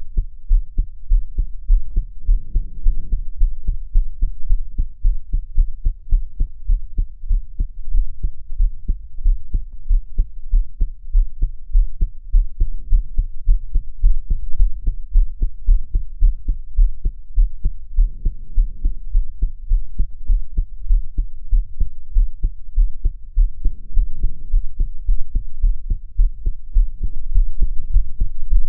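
A young woman's heartbeat recorded while she is crying: regular low thumps in a steady rhythm, with a soft rushing swell every few seconds.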